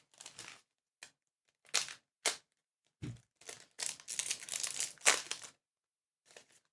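Trading cards and a foil booster-pack wrapper being handled by hand: a string of short crinkling and rustling sounds, with a longer crinkle about three and a half seconds in.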